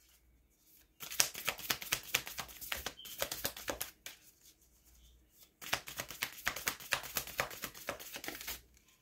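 A deck of moon oracle cards being shuffled by hand: two runs of quick, dense card flicks, each about three seconds long, with a short pause between.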